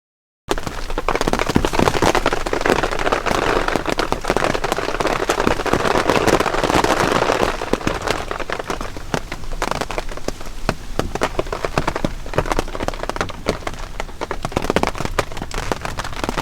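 Dense, steady patter of sleet or ice pellets striking tent fabric. It starts abruptly about half a second in and eases a little after about eight seconds.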